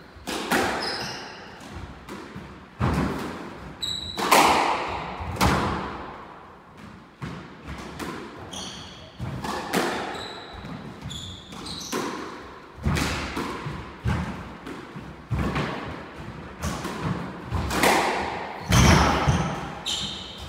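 Squash rally: the ball struck by rackets and smacking off the court walls about once a second, each hit echoing off the walls, with short high squeaks of shoes on the wooden floor.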